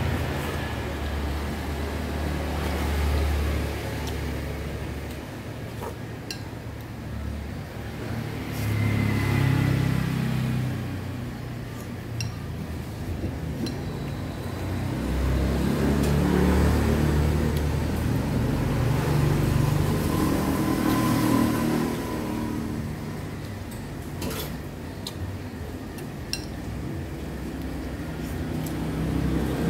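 Street traffic passing: vehicle engines swell and fade every few seconds. Now and then dishes and cutlery clink.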